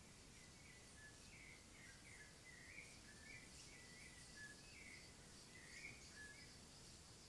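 Faint bird calls: a string of short chirping notes, roughly two or three a second, over a steady hiss.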